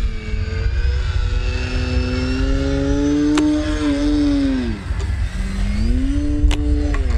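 Brushless electric motor and propeller of an E-flite Ultimate 3D RC biplane, its buzz rising and falling with the throttle: held high, it drops away about five seconds in, then surges again and falls off near the end. Wind rumbles on the microphone underneath.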